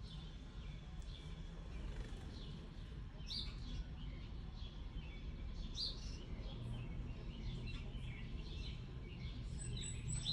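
Birds chirping: many short high notes, two sharper chips standing out about three and six seconds in, over a steady low background rumble.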